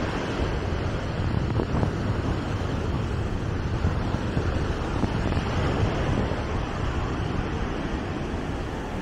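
Small sea waves breaking and washing up over a sandy shore, a steady wash of surf, with wind buffeting the microphone as a low rumble underneath.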